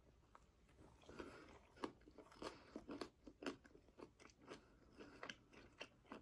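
Faint close-miked chewing of a chicken pot sticker, a string of soft, irregular wet mouth clicks and smacks that come thicker after about two seconds.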